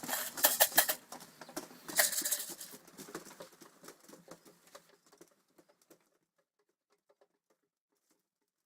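Irregular light tapping and pattering, a dense run of sharp clicks that thins out and fades away over about six seconds.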